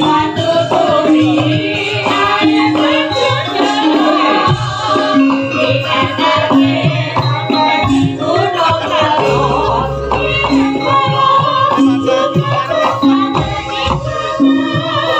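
Javanese gamelan music: repeated metallophone notes with a woman singing a wavering melody over them and now and then deep kendang hand-drum strokes.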